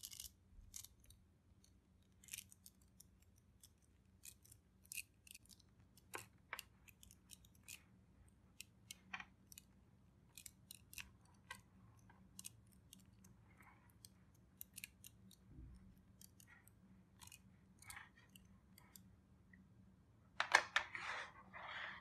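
Sparse, irregular small sharp clicks and snips from close-up hand work on a tabletop craft, with a denser, louder burst of rustling clicks near the end.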